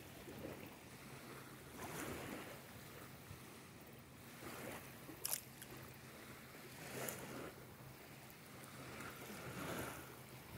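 Small waves lapping at a lake shore, in soft swells every two or three seconds, over a faint steady low hum. A single short sharp click comes a little past the middle.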